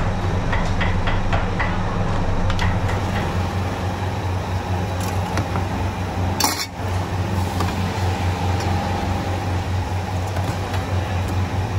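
Porcelain soup bowls and utensils clinking as bowls of noodle soup are assembled, with a run of short sharp clinks in the first three seconds, over a steady low hum.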